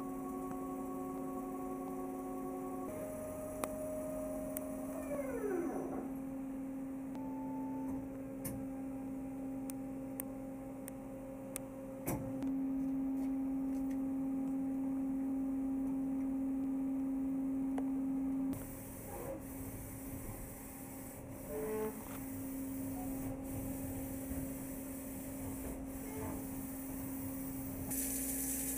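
2014 Samsung SL-40/1500 CNC turning center running under power: a steady machine hum, with a whine that falls in pitch about five seconds in and a few sharp clicks a little later. Near the end the coolant comes on and adds a hiss.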